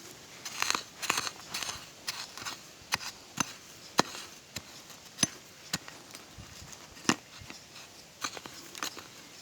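Dry leaf litter and twigs crackling, with irregular sharp snaps and a few louder single cracks.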